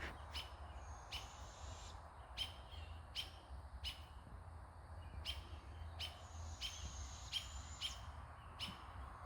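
Bird calls: a short high chirp repeated about once or twice a second, with a long thin high whistle held for about a second, once near the start and again about six and a half seconds in.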